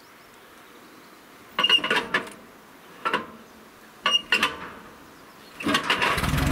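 Metal clanking of a hand crank handle in the nose of a UAZ off-roader: three short bursts of clanks as the engine is turned over by hand. Near the end the engine catches and settles into a steady run, started with the crank instead of a battery.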